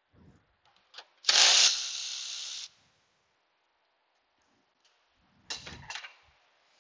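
A handheld power ratchet runs once for about a second and a half, turning a bolt; it starts with a sharp burst and then runs evenly. Near the end come a few short knocks and rattles of tools being handled.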